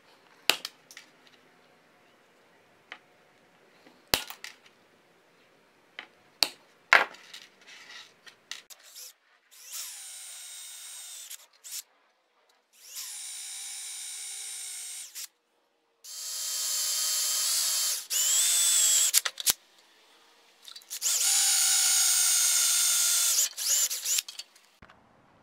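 Side cutters snapping the points off nails, several sharp snaps. Then a power drill runs in four bursts of two to three seconds each, boring pilot holes for the nails through a thin metal sheet into wood.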